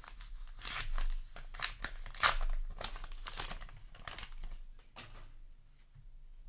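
Trading card booster pack wrapper crinkling and being torn open by hand: a run of short crackles that die down about five seconds in.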